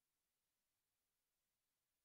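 Near silence: only a faint, even hiss with no sound events.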